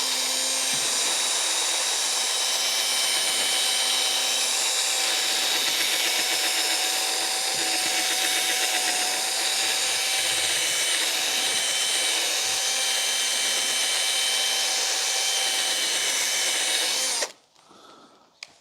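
Cordless drill running steadily while buffing polish into a plastic headlight lens, a high whine over a hiss, stopping abruptly near the end.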